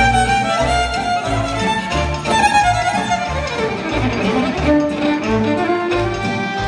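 Violin playing a Moldovan lăutar folk melody, with sliding notes, over a backing accompaniment with a pulsing bass beat.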